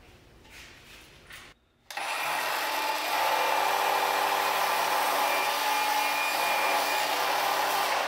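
A power tool's electric motor running steadily for about six seconds with a constant whine. It starts abruptly about two seconds in and winds down near the end.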